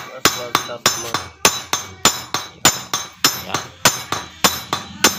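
Small hammer tapping on a Suzuki X4 motorcycle's clutch housing, gently seating the clutch damper lock plate. A steady run of light metallic taps, nearly two a second, each ringing briefly.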